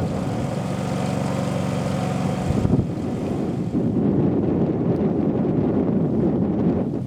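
Wind buffeting the microphone, with a steady low hum underneath for the first two and a half seconds or so that cuts off suddenly.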